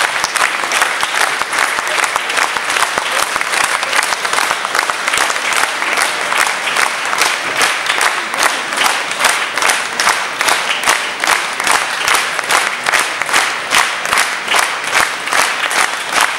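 Concert audience applauding. About halfway through, the scattered clapping falls into rhythmic clapping in unison, roughly two to three claps a second.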